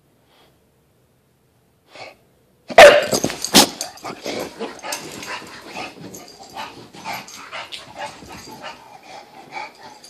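English bulldog barking: a loud first bark almost three seconds in, then a long run of shorter, quieter barks that fade toward the end.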